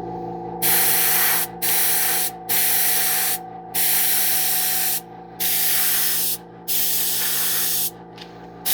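Airbrush spraying paint in short bursts: about six hisses of roughly a second each as the trigger is pressed and released. A steady motor hum runs underneath.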